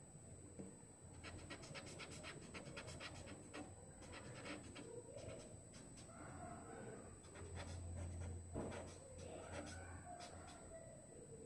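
A blending tool or pastel pencil rubbing and scratching on paper in short, irregular strokes, faint, over a steady low electrical hum.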